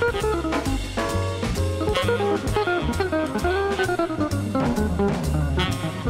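Background music with a steady beat: drums, a repeating bass line and a gliding melodic lead.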